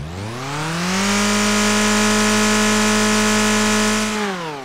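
Simulated car engine sound from an engine-management training simulator, revving up as the throttle is opened, holding at raised revs, then dropping back toward idle about four seconds in.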